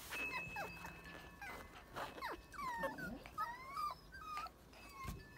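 A puppy whining and whimpering in a run of short, high cries that slide up and down in pitch.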